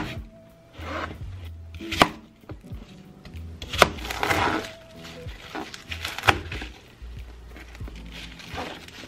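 Ceramic knife cutting apple and then spinach on a plastic cutting board: sharp knocks of the blade striking the board every second or two, with crisp slicing and leafy crunching between.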